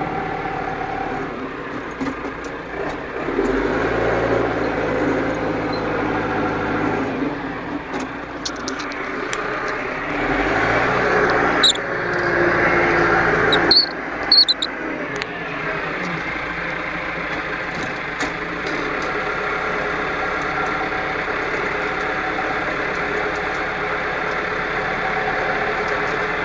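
Tractor engine running, heard from inside the cab, working harder twice as the front loader lifts and dumps a bucket of earth into a trailer. There are a couple of sharp knocks about halfway through.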